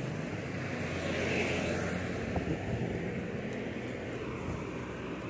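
Steady rumble of road traffic, swelling about a second in as a vehicle passes, with a small knock a little later.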